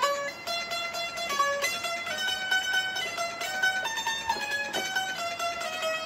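Bulbul tarang (Indian banjo) playing an instrumental melody: quick plucked notes stepping up and down in pitch, several a second.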